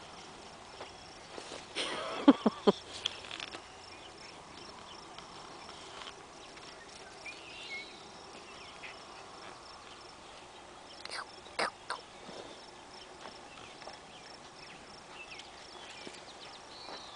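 Faint steady insect chirring, broken by a few sharp knocks and scuffs: a short loud cluster about two seconds in and another about eleven seconds in.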